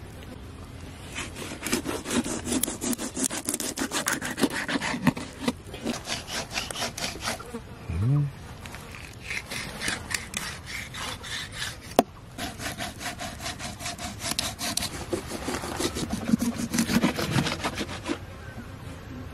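A knife sawing and scraping through raw garfish on a wooden chopping board, in two long runs of quick rasping strokes with a pause between them. A brief low tone sounds about eight seconds in, and a single sharp knock a few seconds later.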